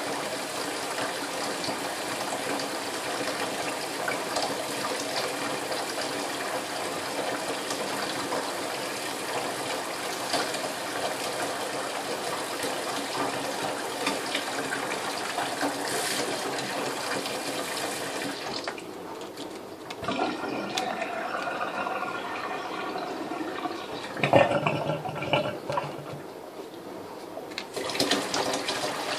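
Kitchen tap running a thin stream of water into a stainless steel sink. The steady hiss softens for several seconds about two-thirds of the way through, with a few louder splashes before it returns near the end.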